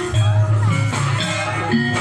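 Javanese gamelan music for a barongan dance: a run of short metallophone notes over a deep low note that sets in just after the start and holds.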